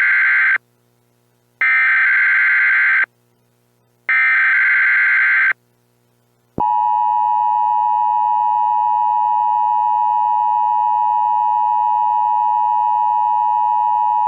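Emergency Alert System tones: the SAME header's digital data bursts, a harsh buzzing warble sent in separate bursts about a second apart (two full bursts after the end of one already under way), then the EAS two-tone attention signal starting about six and a half seconds in, a steady loud dual-tone blare that heralds the spoken alert.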